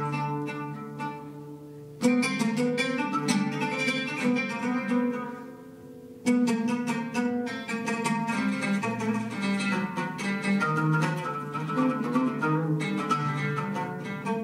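Solo oud being plucked in fast runs of notes. A phrase starts with a loud strike about two seconds in and dies away, then another sharp attack about six seconds in opens denser, continuous playing.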